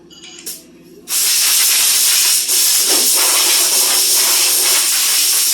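Compressed air hissing from an air tool in one steady blast of about five seconds, starting about a second in, with a brief dip midway.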